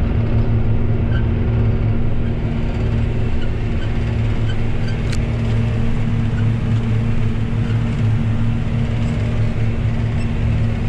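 John Deere 8120 tractor's six-cylinder diesel engine running steadily under load, heard from inside its cab as a constant low drone. One sharp click about five seconds in.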